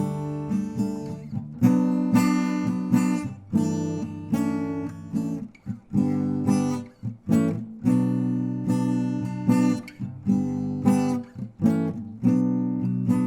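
Acoustic guitar strumming chords in a steady rhythm. Each strum rings out and fades before the next.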